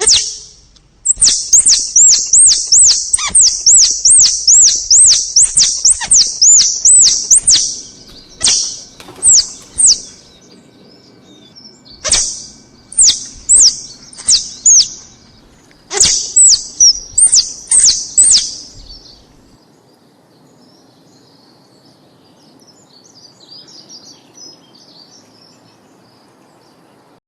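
Squirrel calling with rapid, high-pitched chirps, each a quick sweep in pitch, about two a second in bouts. The calls stop after about nineteen seconds, leaving a few faint chirps.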